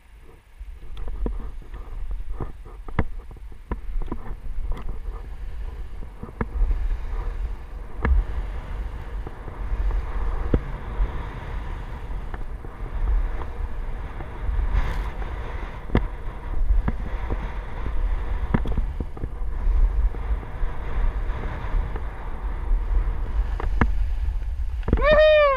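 Skis running over groomed snow, with a steady rumble of wind on the microphone and scattered scrapes and clicks. Near the end, a short shouted call falls in pitch.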